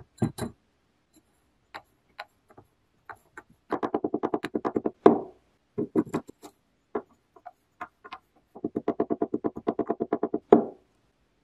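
Lumps of kinetic sand dropping into a glass champagne flute with soft knocks, and a wooden tamper packing the sand down with rapid, even taps, about ten a second. This happens in two runs, each ending in a heavier thump.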